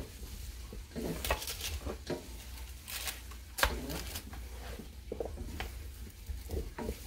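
Slotted spatula scraping and turning cubed potatoes and sweet potatoes on a metal baking sheet: irregular scrapes and clicks, the sharpest about three and a half seconds in.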